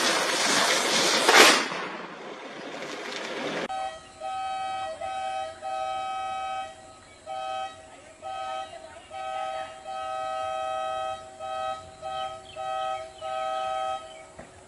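A firecracker fizzing and hissing, with a sharp bang about a second and a half in. After a cut, a vehicle horn sounds over and over in blasts of uneven length. Each blast is the same steady chord of several notes.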